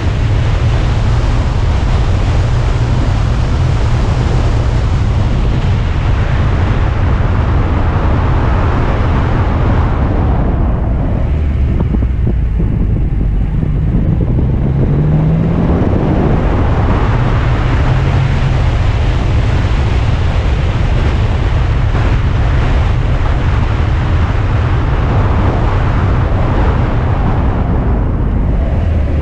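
Alfa Romeo Spider driving downhill, its engine rumble mixed with heavy wind buffeting on the microphone. The high hiss eases about ten seconds in, and an engine note rises briefly around fifteen seconds in.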